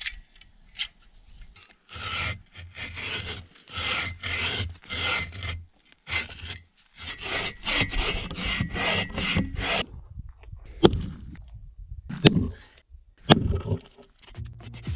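Hand saw cutting through a fallen log, back-and-forth strokes at about two a second, then a few sharp knocks near the end.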